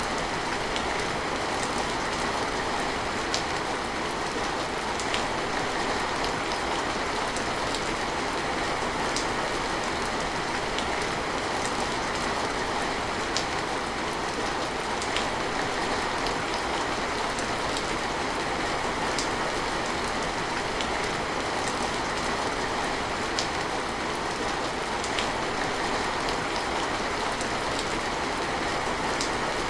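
Steady rain falling, a constant even patter with scattered individual drops ticking out of it now and then.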